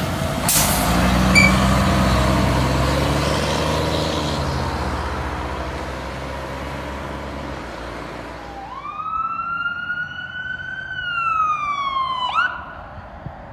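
Fire engine's diesel rumbling loudly as it passes and pulls away, fading over several seconds, with a sharp clank about a second and a half in. From about nine seconds an approaching emergency vehicle's electronic siren wails, rising then slowly falling, and switches abruptly near the end.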